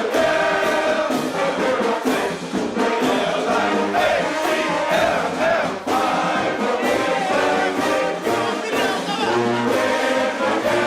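Brass band music with many voices singing along over a steady drum beat.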